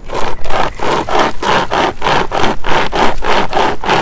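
Nordic Pocket Saw, a handheld chainsaw chain on webbing straps, pulled back and forth in rapid, even strokes through a rotten, punky log, each stroke a rasp of the chain's cutting teeth on wood. The sawing starts at once.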